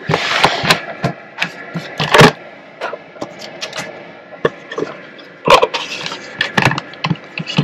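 Handling noise: a string of knocks, clicks and rustling as a hand-held camera is moved and a hand reaches among switches and cables in a van's electrical cupboard to switch on a battery charger. The loudest knocks come about two seconds in and again about five and a half seconds in.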